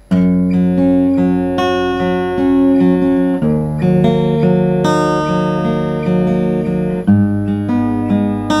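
Acoustic guitar fingerpicked, a picked pattern of notes over chords that change about every three and a half seconds. The strings are not yet cleaned, and the bass strings sound dull.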